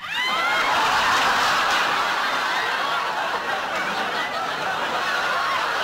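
Studio audience breaking into loud laughter all at once, many voices laughing together without a pause.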